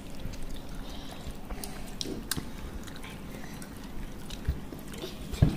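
A whole fried chicken being torn apart by hand on its foil wrapping: soft scattered crackles and rustles, with two dull knocks near the end.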